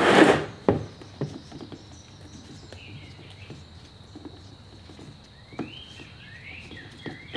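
Light clicks and ticks of a 6 mm hex key working the bolt at the bottom of a motorcycle fork leg, after a brief clatter at the start. Near the end a bird chirps several times.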